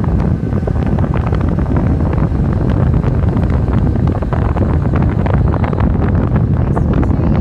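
Heavy wind buffeting the microphone from a ride on a Suzuki Burgman 650 maxi-scooter, a constant low rumble with irregular gusty thumps, with the scooter's running and road noise mixed in underneath.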